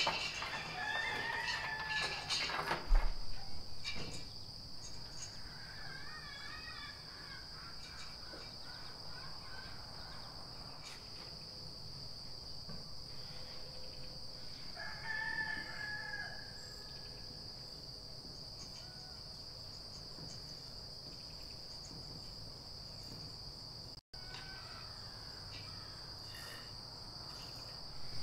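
A rooster crowing a few times, clearest about fifteen seconds in, over a steady high drone of insects. A few sharp knocks in the first few seconds, from the sheep's hooves on the wooden milking stand.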